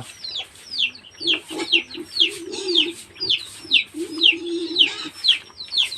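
Chicks peeping in a steady series of short, high chirps that fall in pitch, about two a second, with a hen's low, fluttering clucking underneath from about a second in until near the end.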